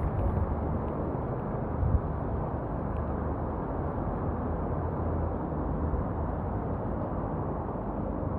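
Steady wind rush and road noise on a microphone carried on a moving bicycle, with a fluctuating low rumble and one short bump about two seconds in.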